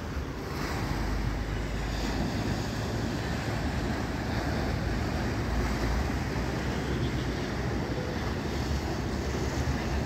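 Sea surf washing against a breakwater of concrete blocks as a steady noise, with wind on the microphone adding a low rumble.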